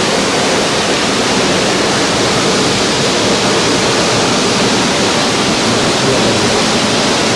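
Loud, steady rush of a large waterfall heard at close range at its base: Giessbach Falls, alpine meltwater pouring down onto rock.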